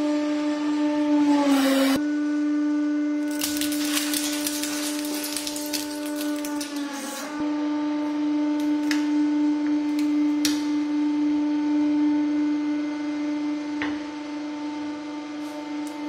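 Hydraulic press's motor and pump running with a steady, pitched hum that dips twice in pitch. Between about three and a half and seven seconds in, a dense crackling of material crushing under the ram, and a few sharp cracks later on.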